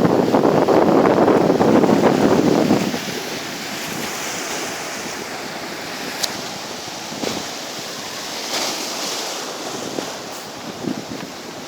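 Sea waves washing on the shore in a strong wind. Wind rushes loudly over the microphone for about the first three seconds, then the softer hiss of the surf swells and fades twice.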